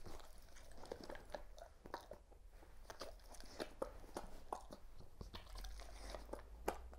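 Dog chewing and crunching treats with its snout inside a basket muzzle: faint, irregular crunching clicks.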